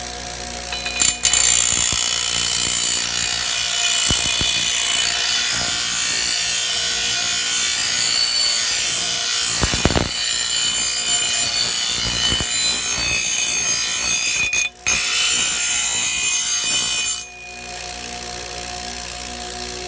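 Grinder wheel grinding the steel edge of a machete blade to reshape its bevel: a loud, high hiss that starts about a second in, breaks off once briefly near three-quarters of the way, and stops about three seconds before the end. A steady hum is heard before and after the grinding.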